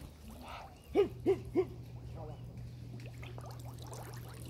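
A hunting dog barks three times in quick succession about a second in. The barks come as short rising-and-falling calls. A steady low hum starts with them and carries on underneath.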